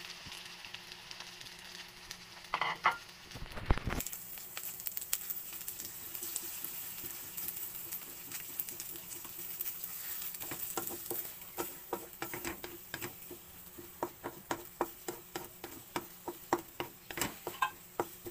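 Egg and chopped cabbage sizzling as they fry in a metal wok, the hiss growing brighter about four seconds in after a few knocks. In the second half a utensil scrapes and clicks against the wok about twice a second as the egg and cabbage are stirred together.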